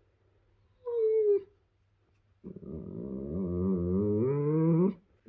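German Shepherd dog vocalizing with pleasure noises: a short whine that dips in pitch about a second in, then a longer moan of about two and a half seconds that rises steadily in pitch.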